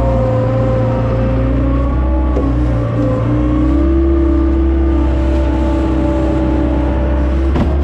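John Deere skid steer's diesel engine running steadily under work, its pitch rising a little about halfway through as the throttle comes up, with a single clunk near the end.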